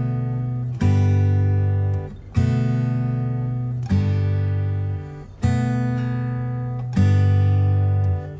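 Background music: acoustic guitar chords, a new chord struck and left ringing about every one and a half seconds.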